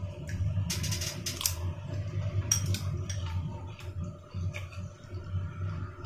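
Close-up eating sounds: chewing a dumpling, with sharp clicks of chopsticks against a ceramic bowl, the densest run about a second in. A low steady hum lies underneath.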